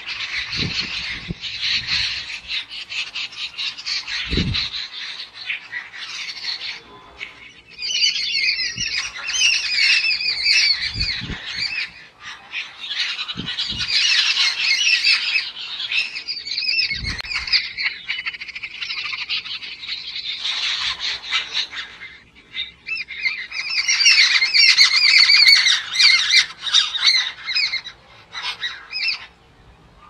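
A flock of jungle babblers calling together in harsh, squeaky chatter, with several birds overlapping. The calling rises and falls in bouts of rapid repeated notes and is loudest about three-quarters of the way through.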